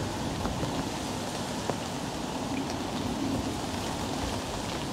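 Steady hiss of light rain, with a few faint drop ticks.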